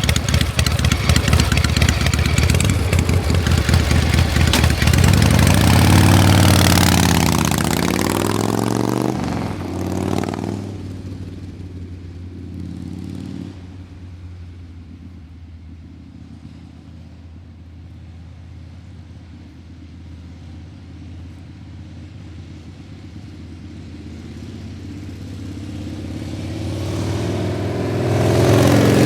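An engine running loud with its pitch sliding up and down, dropping to a low steady hum about ten seconds in, then building up loud again near the end.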